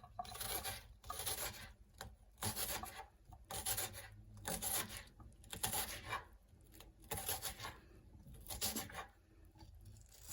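Onion being rubbed and handled by hand: a string of rasping rubbing strokes, roughly one a second, with short gaps between them.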